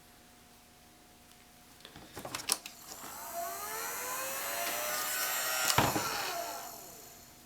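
Handheld hot-air blower used to heat vinyl skin. It is switched on after a few clicks, its fan motor rises to speed and runs steadily for about three seconds, then it is switched off with a click and spins down.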